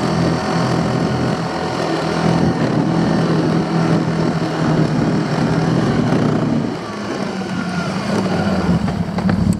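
A motor vehicle's engine running steadily, dropping a little in level about seven seconds in.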